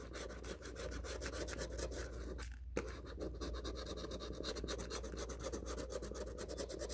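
Coin scratching the latex coating off a paper lottery scratch-off ticket in rapid back-and-forth strokes, with a brief pause about two and a half seconds in.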